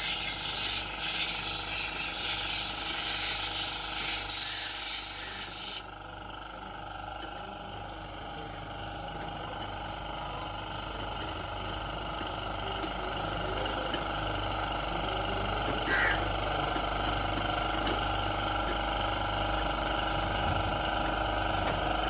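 A loud, even hiss of a jet of spray or air for about six seconds that cuts off suddenly, followed by a steady mechanical hum that slowly grows louder.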